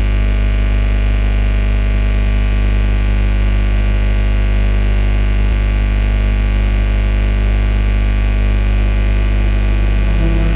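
A loud, steady low drone of many held tones that stays unchanged, with new musical notes coming in near the end as the background music begins.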